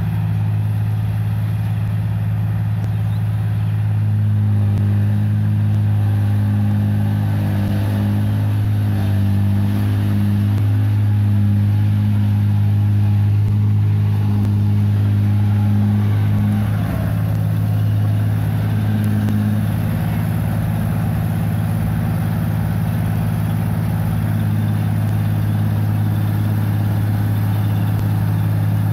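Engine of a tracked 1545 combine harvester running steadily as the machine drives through a muddy paddy field, a strong low hum. The note wavers briefly about 17 seconds in.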